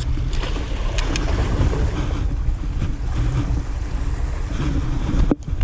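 Wind buffeting the microphone over the wash of sea waves against breakwater rocks, a steady low rumble. A few light clicks come in the first second and a half.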